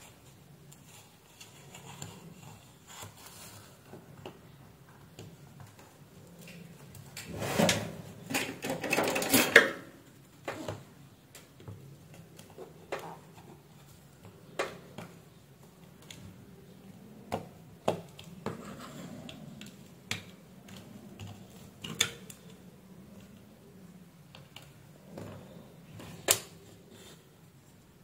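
A plastic AC/DC wall adapter being handled and worked with a flat-blade screwdriver: scattered small clicks and knocks, with a longer, louder scraping stretch about eight to ten seconds in.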